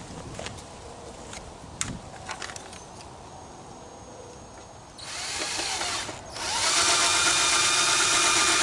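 Ryobi cordless drill drilling into a plastic truck bumper. Light handling clicks, then a short run of the drill about five seconds in, a brief stop, and a louder, steady run.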